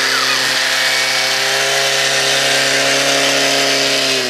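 Farm tractor engine running steadily under load as the tractor drives, a constant mechanical drone with hiss over it.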